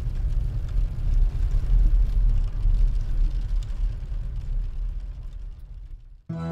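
Low, steady rumble of a moving truck, fading out near the end. Music comes in just before the end.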